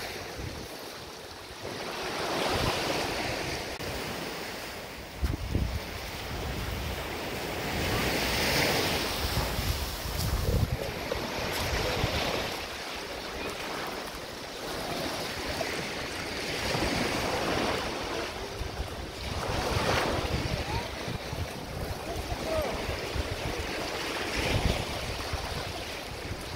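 Small waves breaking and washing up a sandy shore, the surf swelling and ebbing every few seconds, with wind buffeting the microphone.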